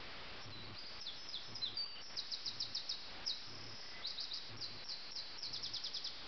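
Common nightingale singing: high-pitched phrases, including runs of rapidly repeated notes, over a steady background hiss.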